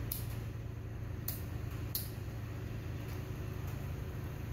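A pocket lighter flicked three times, brief sharp clicks while a cigarette is lit, over a steady low background hum.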